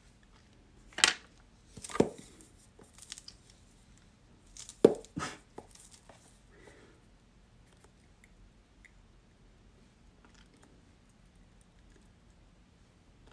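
Makeup palettes and a brush being handled: a few sharp clicks and knocks, the loudest about a second in, at two seconds and a close pair near five seconds, with lighter ticks between. Then quiet handling.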